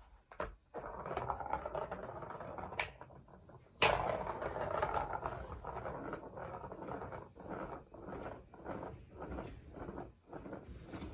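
A light-up ball rolling around a plastic circuit-track cat toy, a steady hollow rumble with a sharp knock about four seconds in.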